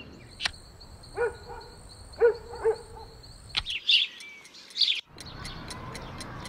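Birds chirping and calling in short bursts, with a faint steady high whistle behind them for the first few seconds. From about five seconds in, a clock ticks quickly and evenly.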